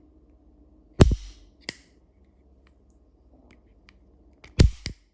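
Hammers of an antique double-barrel pinfire pistol snapping down as it is dry-fired: two sharp metallic snaps about three and a half seconds apart, each followed by a lighter click.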